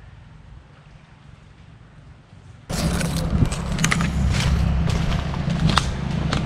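Footsteps crunching through dry leaf litter and palm fronds, with brush rustling and many sharp crackles over a low rumble on the microphone. It starts abruptly about a third of the way in, after a stretch of faint background noise.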